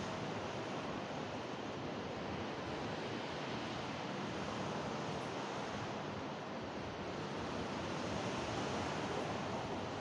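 Steady rush of sea surf breaking on a rocky shore, mixed with wind, swelling slightly near the end.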